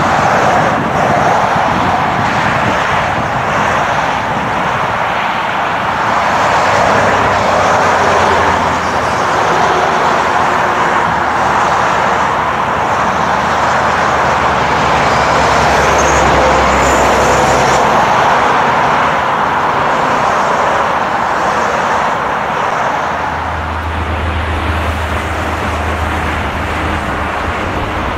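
Four-engine widebody jet airliner at takeoff power, its engines making a steady, loud rushing noise with a low rumble underneath as it rolls down the runway and lifts off.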